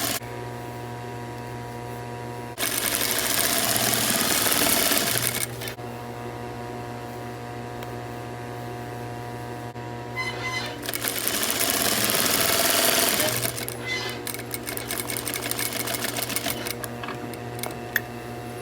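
Sewing machine stitching a narrow hem in thin lining fabric. It runs at speed in two stretches of about three seconds each, then stitches in shorter stop-start spurts near the end, over a steady low hum.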